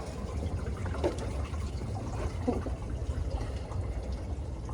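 Paddle strokes in the water beside a dinghy: water swishing and trickling off the blade.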